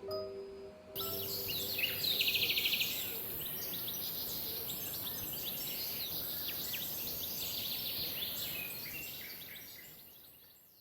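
Birds chirping and trilling, many overlapping calls, with a fast trill a couple of seconds in. It starts abruptly about a second in, after a held chime-like music note, and fades out near the end.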